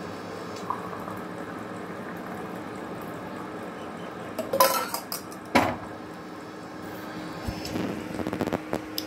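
Milk tea being poured from a steel saucepan through a tea strainer into steel tumblers, with two sharp clanks of metal on metal about halfway through and a quick run of light metal taps near the end.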